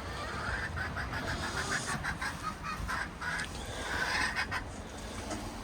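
Chickens calling, a quick run of short repeated squawks and clucks lasting several seconds, over a low rumble of wind on the microphone.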